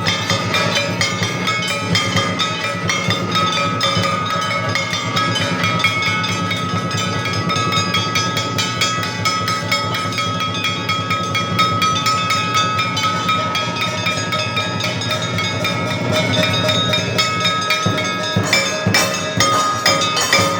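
Temple aarti bells and cymbals ringing continuously in a fast, steady metallic clatter, with held ringing tones above a low hum; the low part drops away near the end.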